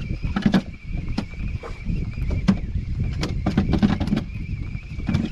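Irregular knocks and clatter, about a dozen, on a small fishing boat, over steady wind and water noise and a faint, steady high whine.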